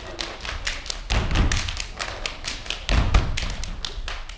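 Shoes stamping and tapping on a stage floor in a step-dance battle: quick sharp taps about four a second, with heavier stomps about a second in and again about three seconds in.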